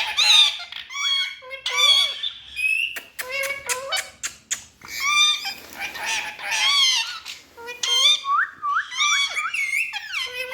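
Indian ringneck parrots calling and chattering: a steady stream of shrill squawks and chirps that glide up and down in pitch, with a quick run of short rising calls near the end.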